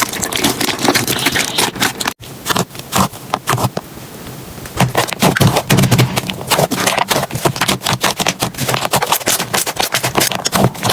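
Slime being squeezed and poked by hand: a rapid run of sticky clicks and crackles, with a brief break about two seconds in and a softer stretch before the clicking picks up again.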